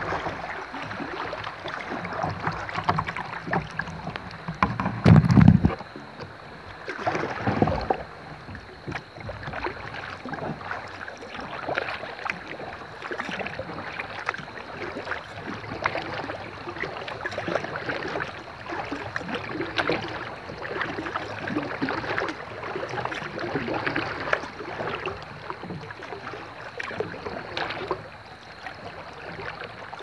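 Kayak on a shallow creek: paddle strokes and water splashing and lapping around the plastic hull, with one loud low thump about five seconds in.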